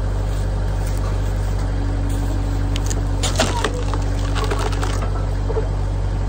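A tractor engine running steadily, powering a tractor-mounted hydraulic log splitter as its wedge presses down into a large wood round. Sharp cracks and creaks come from the wood midway through.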